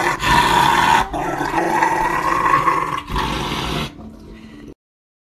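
Rottweiler growling while its nails are clipped, a long rumbling growl in three stretches with short breaks for breath, stopping about four seconds in.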